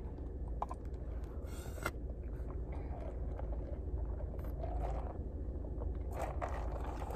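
Steady low rumble inside a car, with a few faint clicks, scrapes and rustles as a plastic drink cup and its straw are handled and sipped from.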